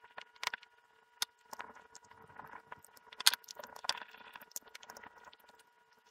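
Small screws being driven back into the plastic handle of a self-igniting propane torch with a screwdriver: scattered light clicks and scraping of the driver in the screw heads and the housing being handled, with one sharper click about three seconds in. A faint steady hum lies underneath.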